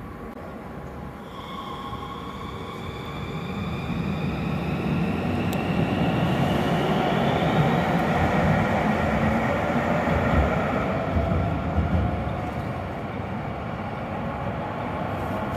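Low-floor electric tram pulling away from the stop and accelerating, its traction motors giving a whine that rises in pitch over a rumble of wheels on rails. It is loudest midway as the tram passes, then fades.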